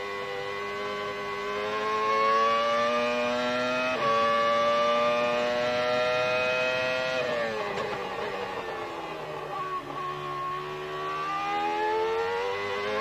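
Formula 1 car engine at high revs, heard onboard on a flying lap. The pitch holds high and climbs, then drops steeply a little past halfway as the car brakes and shifts down, and rises again near the end as it accelerates out.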